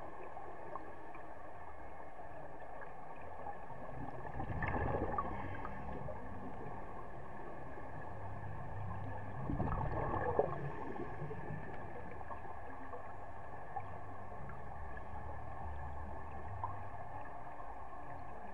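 Underwater ambience with a steady faint hum, broken twice by a gurgling rush of bubbles from a scuba diver exhaling through the regulator, once about four and a half seconds in and again about nine and a half seconds in.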